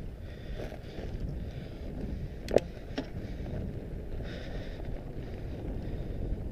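Mondraker Panzer fat bike riding over a gravel dirt trail: wind buffets the onboard camera's microphone over the low rumble of the fat knobby tyres. A sharp knock about two and a half seconds in and a lighter one half a second later, as the bike rattles over the rough ground.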